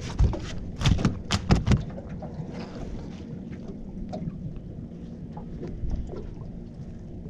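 Several sharp knocks and clunks in quick succession in the first two seconds, then a steady low rumble of wind and water with a few faint ticks.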